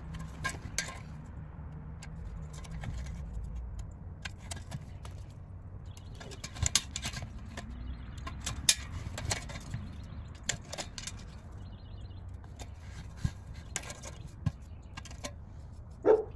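Scattered clinks and knocks of hard objects being handled, irregular and a few louder than the rest, over a steady low hum.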